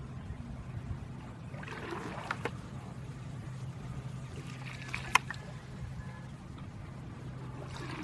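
Small wooden boat being punted with a bamboo pole through shallow water: soft water sloshing and trickling as the pole is pushed and lifted, with a sharp knock about five seconds in, over a steady low hum.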